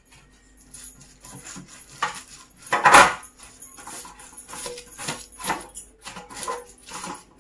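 Silicone pastry brush dabbing and scraping grease over baking paper in a metal loaf pan, with light taps and clicks against the pan and one loud clatter about three seconds in.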